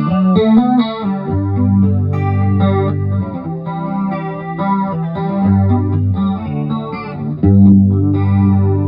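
Electric guitar played through an A/DA Flanger effects unit that has just been repaired, chords and notes ringing over a sustained low note. A louder chord is struck about seven and a half seconds in.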